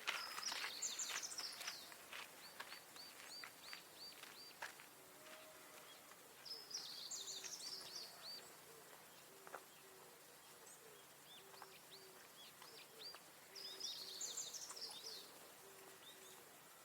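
Wild birds singing faintly. A short, high warbling song phrase repeats about every seven seconds, with scattered chirps in between and a faint, low, evenly repeated note in the background.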